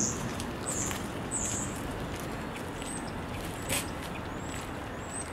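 Small birds chirping: a few short high chirps in the first second and a half, then three thin rising whistles, over a steady background rumble. A single sharp click about three and a half seconds in.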